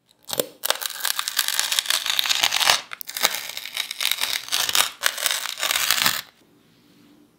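Crisp crackling and crunching of a knife blade pressing through the fried crust of a grated-potato and cheese pancake, in two long cuts with a brief break about three seconds in. It stops about six seconds in.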